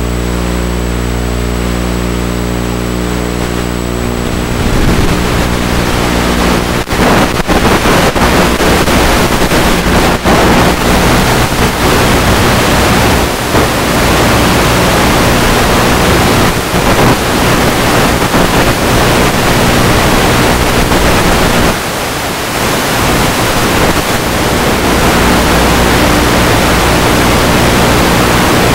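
Multiplex EasyStar 2 RC plane's electric pusher motor and propeller running with a steady hum. After about four seconds a loud rush of wind on the onboard microphone covers it in flight, dipping briefly about three-quarters of the way through.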